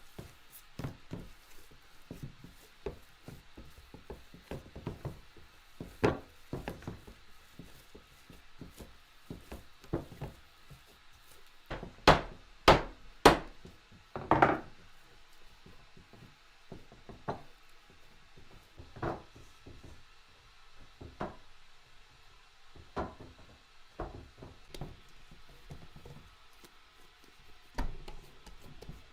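Knife chopping on a wooden cutting board: irregular knocks throughout, with three loud, sharp strikes in quick succession about halfway through.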